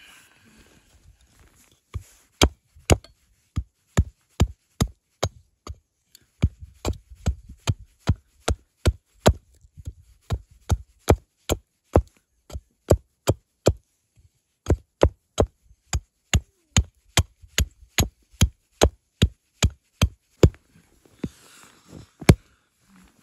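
Rapid, evenly spaced sharp knocks, about two a second, like a tool striking repeatedly, in three runs with two short pauses.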